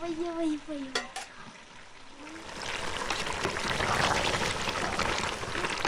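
Food frying in a hot pan: a dense crackling sizzle that builds up from about two seconds in and keeps going. In the first second, a short pitched sound and a couple of light clicks come before it.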